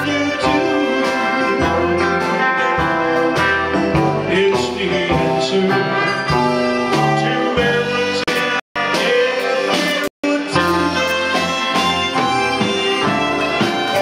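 Live band playing: trumpet and saxophone over electric guitar, bass and drums, with a voice singing. The sound cuts out completely for an instant twice, a little past halfway.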